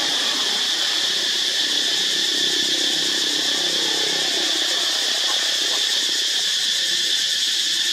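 Steady, high-pitched drone of a forest insect chorus, unbroken and at an even level.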